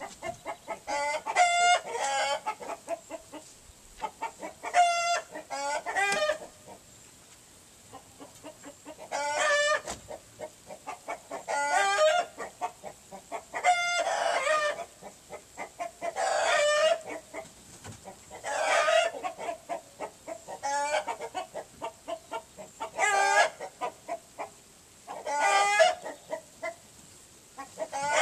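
Chickens calling over and over: loud, pitched clucking calls in short runs, one run about every two seconds.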